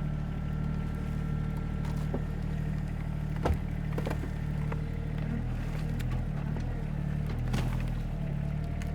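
SANY SY26U mini excavator's diesel engine running steadily, with several sharp knocks and snaps of wood and brush being handled, the loudest about three and a half seconds in.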